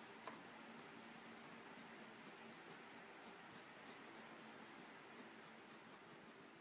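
Faint scratching of a white Prismacolor colored pencil drawn in quick short strokes over UART sanded paper, about five strokes a second, with one sharp click about a third of a second in.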